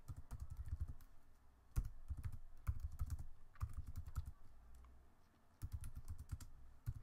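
Computer keyboard typing: runs of quick keystrokes as a terminal command is entered, with a pause of about a second a little after four seconds in.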